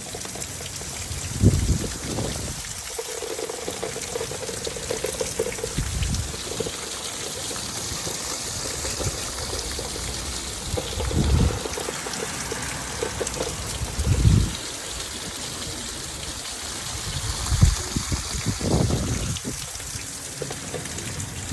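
Heavy rain falling, with water pouring and trickling, and strong wind gusting against the microphone in several low rumbles.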